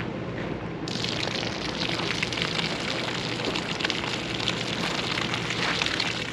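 Water starts gushing out of a portable water softener's outlet hose suddenly, about a second in, and keeps splashing with a hissing crackle. This is the softener's first-time flush under hose pressure.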